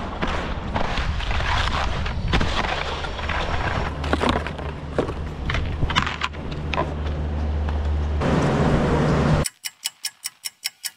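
Skis scraping and chattering over hard, icy, thin snow, with wind on the camera microphone. Near the end this gives way to a rapid, even run of ticks, about eight a second.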